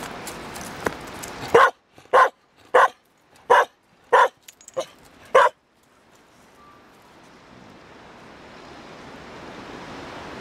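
A dog barking six times in quick succession, a bark about every two thirds of a second, starting about a second and a half in.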